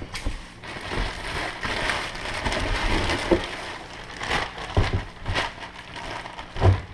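Clear plastic bag crinkling and rustling as a goose decoy is pulled out of it, with cardboard box flaps being handled, and a thump near the end.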